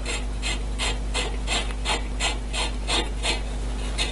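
Ratchet wrench clicking steadily, about three clicks a second, as the exhaust pipe's fixing nut is backed off.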